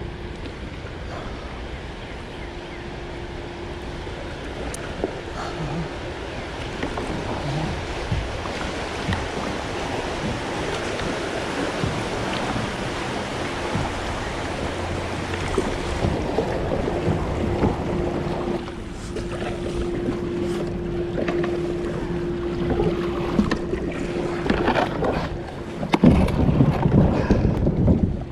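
River water rushing and splashing around a kayak running rapids, with wind buffeting the microphone; the noise swells louder near the end.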